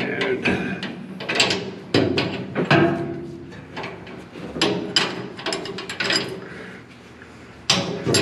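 Open-end wrench working a nylock nut onto a carriage bolt at a leaf-spring shackle in short strokes: a run of irregular metal clicks and clinks as the wrench is re-seated on the nut, with a brief lull near the end.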